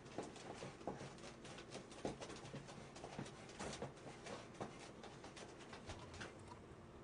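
Faint handling noise: soft rustling with scattered light clicks and taps, with no speech.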